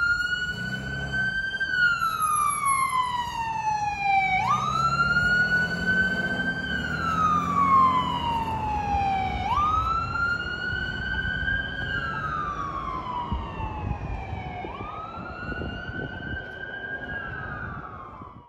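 Fire department ambulance's electronic siren on a slow wail, climbing quickly and gliding down again about every five seconds, over the rumble of its engine as it drives away. It grows fainter toward the end, then cuts off suddenly.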